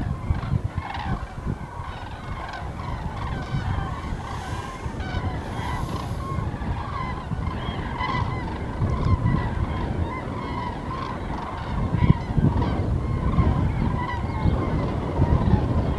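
A flock of common cranes calling in flight, many overlapping trumpeting calls at once. A low rumble of wind on the microphone runs underneath and grows stronger near the end.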